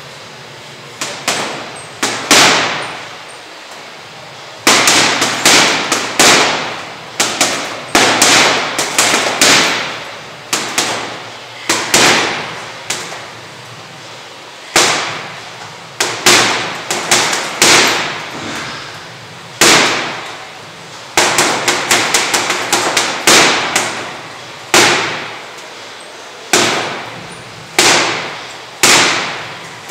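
Boxing-gloved punches landing on a hanging heavy bag: sharp smacks, singly and in quick combinations of several hits, with short pauses between, each hit followed by a brief echo.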